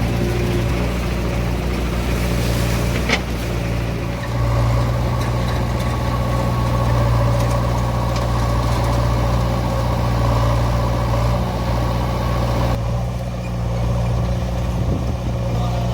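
Diesel engine of heavy farm or earthmoving machinery running steadily, with a single sharp knock about three seconds in.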